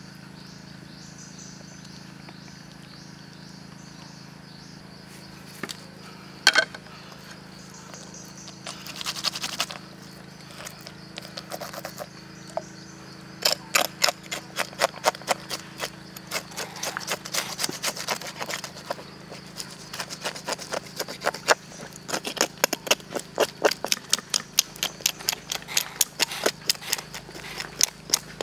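A knife blade scraping the scalded skin of a baby crocodile on a wooden board, in quick repeated strokes, several a second, starting about halfway through. This strips the softened outer skin after scalding.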